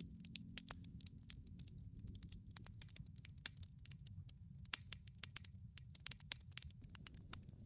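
Campfire crackling softly: irregular small pops and snaps over a low steady rumble.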